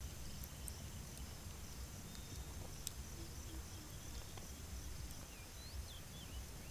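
Rural field ambience: a steady high-pitched insect drone over a low rumble, with a few short bird chirps about five to six seconds in.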